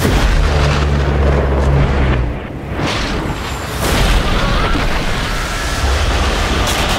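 Thunder sound effects: a deep boom at the start with a heavy low rumble for about two seconds, then a whooshing swell about three seconds in and more rumbling.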